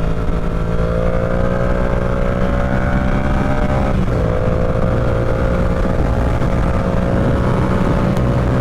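Yamaha R7's parallel-twin engine running at road speed. Its note climbs slowly, breaks off briefly about four seconds in, then carries on steady.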